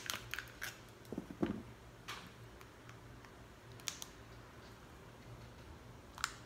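Kitchen shears snipping a crab leg shell, then the shell cracking as it is pulled apart by hand. A few sharp clicks and snaps: several in the first second and a half, then single ones spaced a couple of seconds apart.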